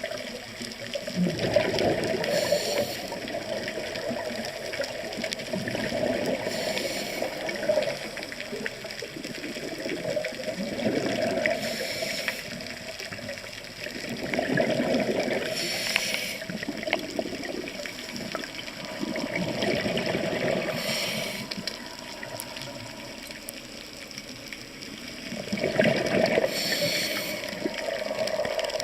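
Scuba diver breathing underwater through a regulator: bubbling exhalations and short inhalation hisses in a slow cycle, about every five seconds.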